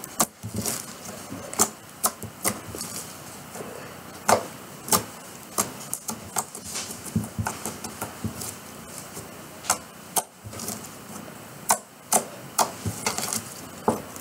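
Homemade glue slime being poked, pressed and pulled up off a wooden tabletop by fingers, giving irregular sharp sticky pops and clicks, sometimes several in quick succession.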